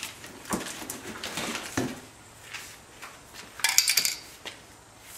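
Handling noises as an aerosol spray-paint can is picked up and brought forward, with a brief burst of sharp metallic clinks about three and a half seconds in.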